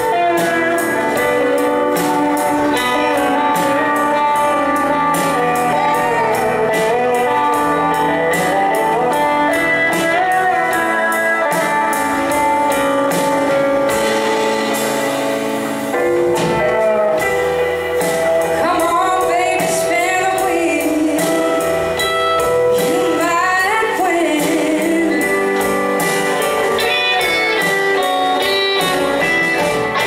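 Live band playing: a woman singing over electric and acoustic guitars, bass and drum kit, with a steady beat.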